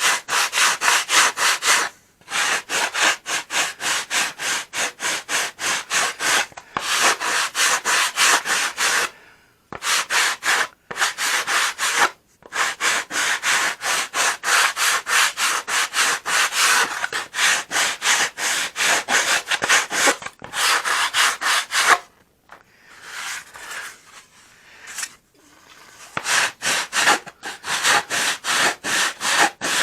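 Sandpaper rubbed back and forth on the balsa edge of a model airplane's horizontal stabilizer, shaping it in quick, even strokes. The sanding comes in runs broken by a few short pauses and a quieter, lighter stretch a little past the middle.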